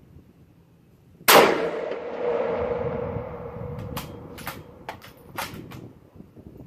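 A single shot from a Remington 700 bolt-action rifle in .243 Winchester about a second in, followed by a long ringing, rolling echo. About five short, sharp clicks follow, typical of the bolt being worked to chamber the next round.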